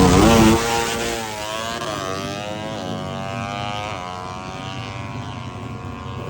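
A drag-racing motorcycle engine at high revs pulling away down the strip. Its pitch climbs and drops back with each gear shift, and it fades as it moves off.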